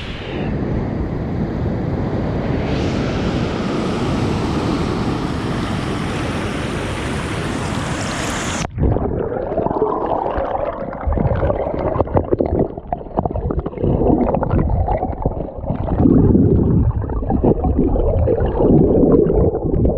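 Fast river water rushing in a steady roar, then, after an abrupt change about nine seconds in, closer uneven sloshing and gurgling of water.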